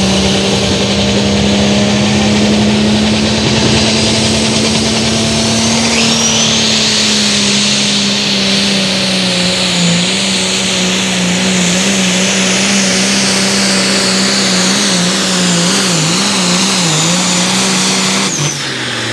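Limited Pro Stock pulling tractor's turbocharged diesel engine at full throttle, dragging the weight-transfer sled, a steady hard-working note with a high whine that rises about six seconds in. Near the end the pitch wavers for a few seconds, then the engine note drops away suddenly as the throttle is cut at the end of the pull.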